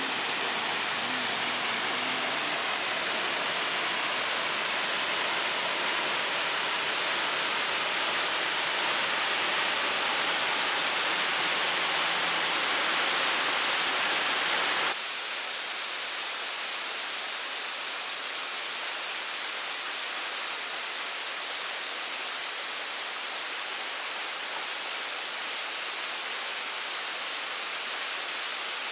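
Steady rushing of a waterfall, the water falling hard into its pool. About halfway through the sound changes abruptly to a thinner, hissier rush with less low rumble.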